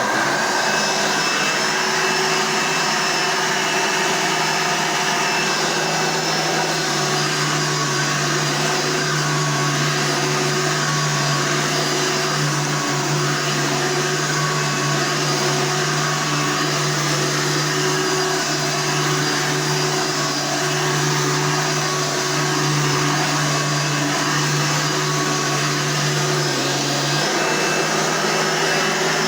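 Hoover Soft & Light vacuum cleaner switched on and running steadily. Its motor hum steps slightly higher about seven seconds in and drops back near the end.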